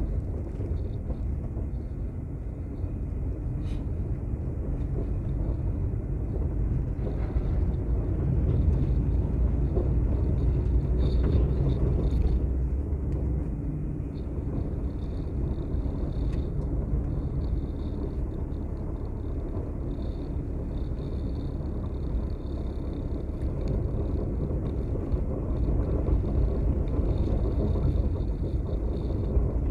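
Steady low rumble of a vehicle travelling along a road, swelling a little and easing again partway through.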